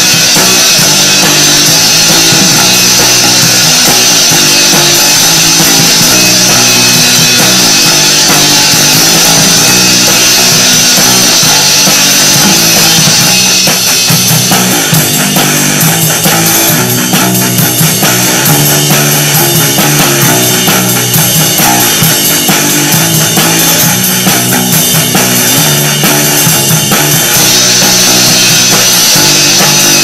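Punk rock demo recording: a band with drum kit and guitar playing loud and steady, dense and without pauses.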